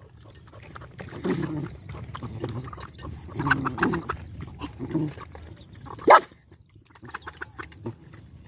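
Several dogs eating together from one metal bowl, with low growls among them and one short, sharp, loud sound about six seconds in.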